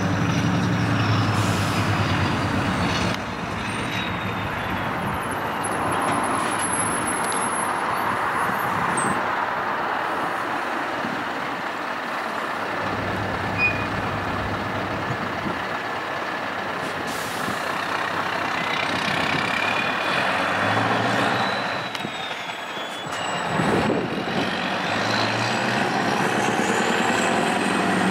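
Scania R560 truck's 16-litre V8 diesel pulling away and accelerating under load with a tipper trailer, its deep engine note dropping and picking up again at several gear changes. A thin high whistle glides down and later rises with the revs, and air hisses from the brakes.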